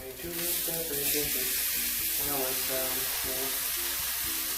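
A piece of dragon fruit frying in a pan: a steady sizzling hiss that comes up sharply just after the start. A simple background melody of held notes plays under it.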